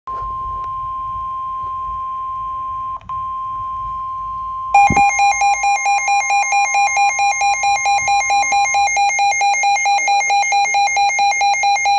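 Emergency alert tones: a steady high tone near 1 kHz, with a short break about three seconds in. About five seconds in, a harsh electronic alarm starts beeping about four times a second, and the steady tone drops out under it near nine seconds.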